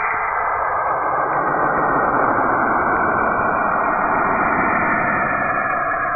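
Sonified space recording: Saturn's magnetic-field radio emissions converted into sound. It is a steady, dense, muffled rushing roar with faint wavering tones drifting through it.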